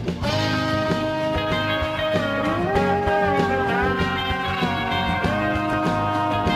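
Instrumental break of a rock song: electric guitar holding long notes that bend up and down in pitch over a steady bass and drum backing.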